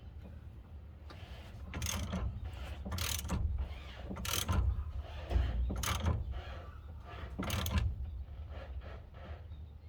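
Socket ratchet wrench clicking in a series of about five short strokes, tightening the steering-hub nut on the steering column.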